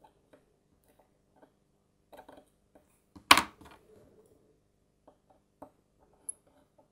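Small clicks and taps of steel watchmaker's tweezers and tiny parts on a pocket watch movement, with one sharp, loud click a little over three seconds in.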